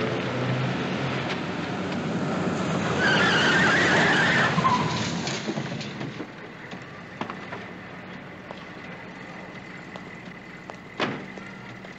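A police car drives up on wet pavement and brakes to a stop, its tyres squealing briefly about three to four seconds in. After it quiets, a single sharp knock about eleven seconds in, like the car door.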